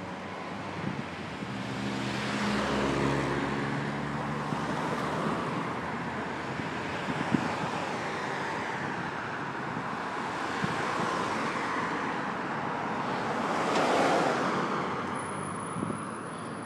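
Road traffic: cars passing one after another, each swelling and fading, with an engine hum about three seconds in and the loudest pass near the end. Wind on the microphone.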